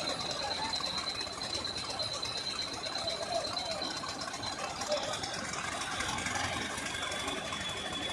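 Construction machinery engine running steadily, with a thin high whine over it that drops slightly in pitch near the end.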